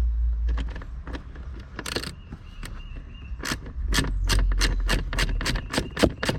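Socket ratchet clicking, about three clicks a second, while a brake master cylinder mounting nut is backed off by hand, with a short scrape of metal about two seconds in.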